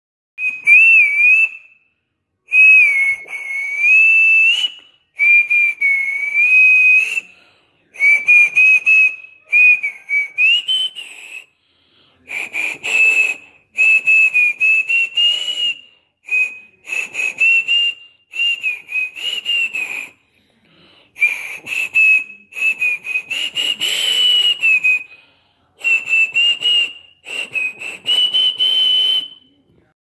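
A person whistling through fingers held at the lips, imitating the call of the blekok bird. It comes as about fourteen warbling phrases of one to two seconds each, with short pauses between them, the pitch wavering up and down and rising at the end of some phrases.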